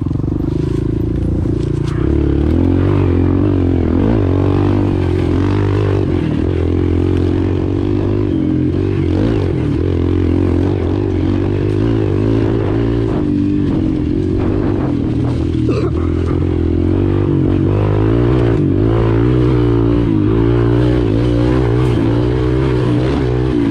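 Small four-stroke Kawasaki KLX pit bike engine running under constantly changing throttle on a rough dirt trail, its pitch rising and falling as it revs and eases off, with scattered clatters and knocks from the bike over the rough ground.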